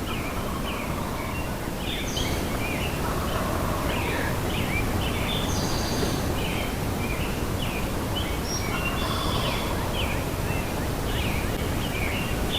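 Many songbirds chirping and singing at once, short overlapping calls and trills all through, over a steady low rumble.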